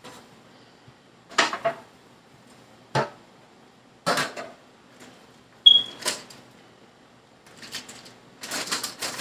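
Kitchen items being handled and set down: a string of separate knocks and clatters a second or so apart, one short ringing clink about halfway through, and a busier run of clattering near the end.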